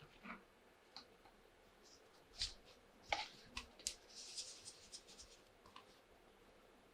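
Small toy kitchen pieces being handled: scattered light clicks and taps, with a brief scratchy rustle about four seconds in.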